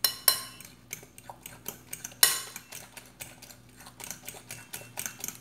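Metal spoon stirring a thick banana, egg and oat batter in a glass bowl, clinking against the glass in quick, irregular taps, with a few louder knocks near the start and about two seconds in.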